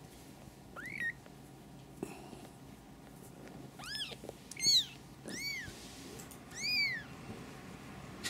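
Newborn ginger kitten mewing: about five short, high-pitched cries, each rising and falling in pitch. The first comes about a second in and the rest in the second half.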